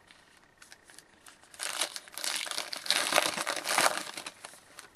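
Crinkling of a hockey trading-card pack's plastic-foil wrapper as it is handled and opened. A few light clicks come first, then a few seconds of steady crackling.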